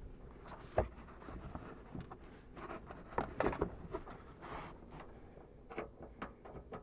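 Irregular clicks, light knocks and rubbing of hand work with metal fasteners and a wrench, as the 13 mm nuts holding a car's rear bumper cover are put back on.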